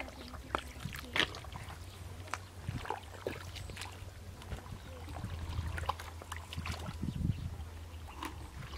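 Scattered small splashes and squelches of hands and rubber boots working through shallow muddy water, over a steady low hum.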